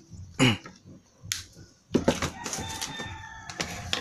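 A rooster crowing in the background through the second half, a held call with several steady pitches. Under it, small clicks and rattles of a wired amplifier chassis being handled. A single sharp snip about a second in, like a cable-tie tail cut with side cutters.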